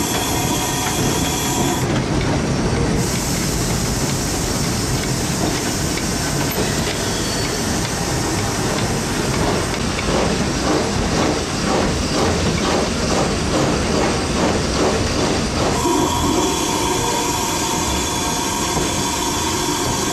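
Cab noise on the footplate of the Peppercorn A1 Pacific steam locomotive 60163 Tornado under way: loud running noise and steam hiss, with a regular beat for several seconds around the middle. A steady high ringing tone sounds at the start and again near the end.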